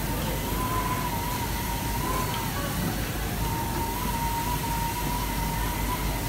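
FK Universal 8 automatic fabric cutter running as its head cuts through a plastic-covered fabric lay: a thin steady whine that wavers slightly in pitch and drops out briefly about halfway through, over a steady rush of machine noise.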